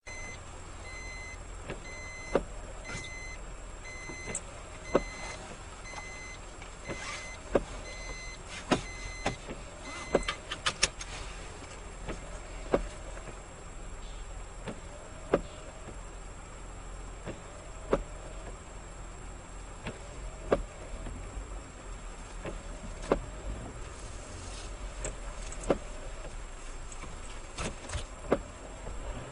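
Windshield wipers of a car sweeping in the rain, about once every two and a half seconds, each stroke ending in a sharp click followed by a brief rising motor whine. Beneath them runs the steady low hum of the engine and road. Through the first ten seconds an electronic beep repeats about one and a half times a second.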